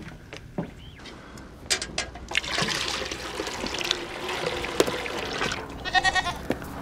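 Milk being poured from a jug into a metal pail: a steady trickling, splashing pour that starts about two seconds in, with a few sharper splashes among it.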